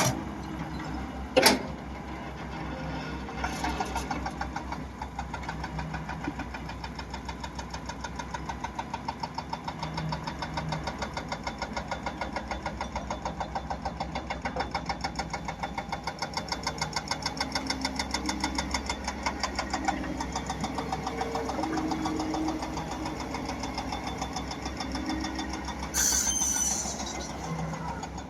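Diesel engine of a heavy earth-moving machine running with a steady, rapid pulsing beat. There is a sharp clack about a second and a half in and a short rushing hiss near the end.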